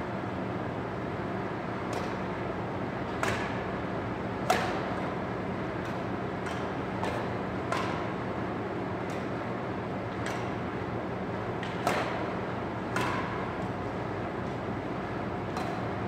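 Badminton rackets striking a shuttlecock back and forth in a rally: sharp, short cracks roughly every second, some louder than others, over a steady background hum.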